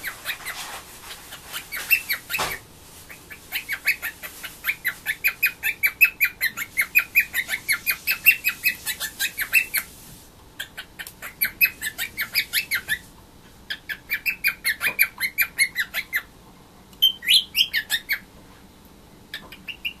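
Cockatiel chattering: long runs of short, quick chirps, about five a second, broken by short pauses, with a higher, squeakier run about three-quarters of the way through. A single knock sounds about two seconds in.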